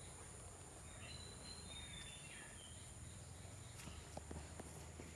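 Faint garden ambience: a steady, high-pitched insect drone, with a few short, faint bird whistles about a second in and a couple of light clicks near the end.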